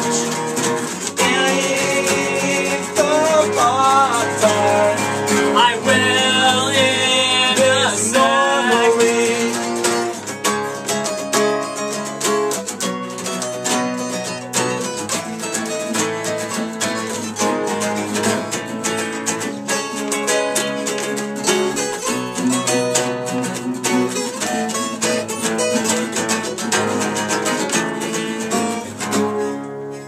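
Several acoustic guitars strumming and picking a song together. A voice sings over them for about the first nine seconds, then the guitars carry on alone, a little quieter.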